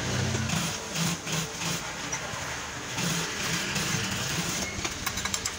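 JUKI industrial sewing machine running and stitching through the bag's layers, its motor hum starting and stopping in short runs.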